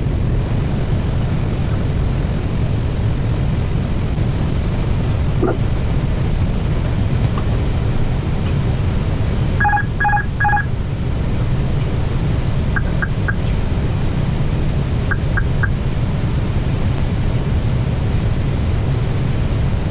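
Steady cockpit noise of an Airbus A320neo on final approach: airflow and engine rumble. About halfway through come three short two-tone electronic beeps, followed by two quick sets of three short high beeps.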